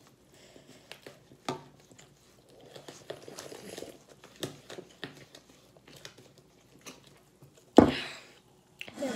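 Cake batter stirred by hand in a ceramic bowl, with scattered light clicks of the utensil against the bowl and sips and swallows from a soda can. A single louder knock comes near the end.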